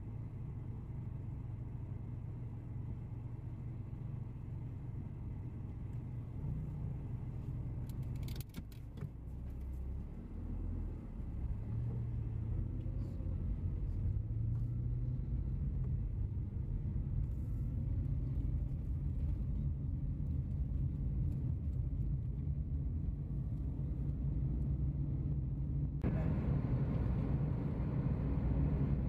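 Low, steady rumble of a vehicle's engine and road noise while travelling, with the engine note shifting about ten seconds in. A few light clicks come a little past eight seconds in. About twenty-six seconds in, a louder hiss of road noise joins the rumble.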